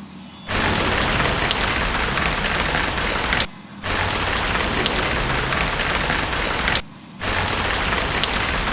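Steady heavy rain hiss with small crackling drops, broken by brief drops in level about every three and a half seconds, as if a short recording is being looped.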